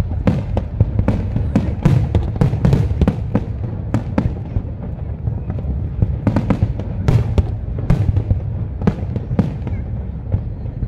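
Fireworks display: aerial shells burst in rapid, irregular succession, many sharp bangs a second over a steady low rumble.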